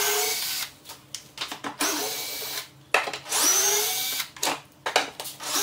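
Makita cordless drill/driver backing out the dash panel screws, running in short bursts about every second and a half. Each burst spins up in pitch, with clicks and knocks in the gaps between.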